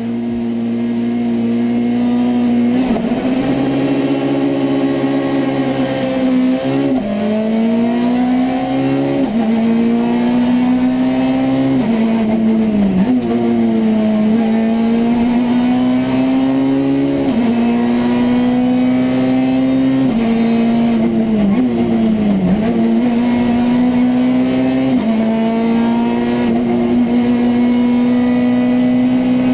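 Citroën C2 R2 Max rally car's 1.6-litre four-cylinder engine driven hard on a stage, heard from inside the cockpit: the revs climb and drop sharply again and again with gear changes, with a few deeper dips and pick-ups for slowing into corners.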